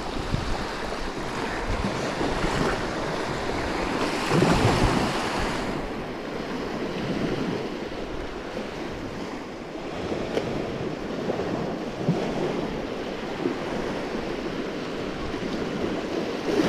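Small waves breaking and washing up the beach, with wind on the microphone. A louder surge of surf comes about four seconds in.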